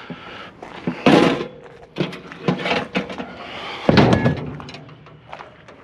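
Heavy metal clanks from cast-iron brake rotors being handled and dropped: two loud impacts, about a second in and near four seconds, the second leaving a brief ring, with smaller knocks between.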